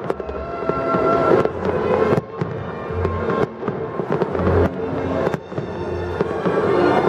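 Fireworks going off: a rapid, irregular run of sharp bangs and crackles, with a few deeper booms about three, four and a half and six seconds in.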